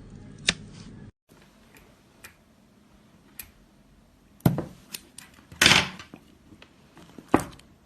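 Slime being handled, giving scattered sharp clicks and pops, with three louder crackling pops in the second half.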